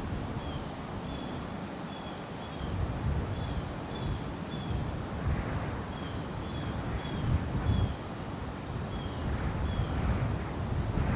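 Wind gusting against the microphone in an outdoor fall setting, with a steady series of faint short high chirps repeating about once a second.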